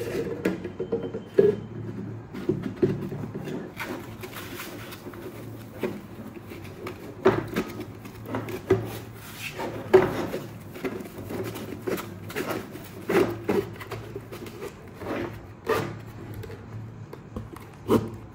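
3D-printed plastic case halves scraping and rubbing as they are pushed together over a taped battery pack, with irregular clicks and knocks of plastic against plastic.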